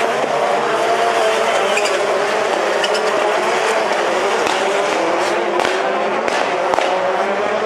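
Rallycross Supercar engines running hard, their pitch rising and falling as the cars accelerate and lift. A few sharp cracks come in the second half.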